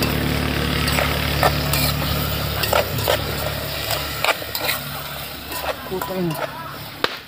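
Food being stirred and handled by hand in a small metal pot over a wood fire, with many sharp clicks and clacks. A steady low drone runs underneath and stops about four seconds in.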